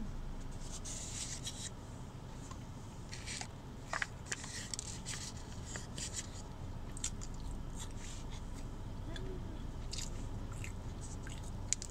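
A person biting into and chewing a Big Mac, with soft, irregular crunching and wet mouth clicks from the bun and shredded lettuce, over a steady low hum.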